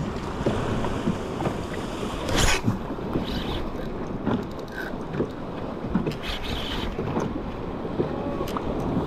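Wind buffeting the microphone over choppy open sea, with water sloshing and a sharp knock about two and a half seconds in.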